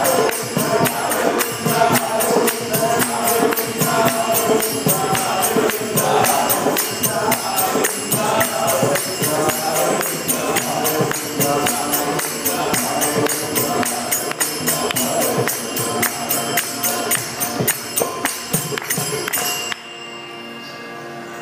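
South Indian devotional bhajan music: voices singing to a steady rhythm of mridangam drum strokes. The music stops abruptly near the end, leaving a quieter held tone.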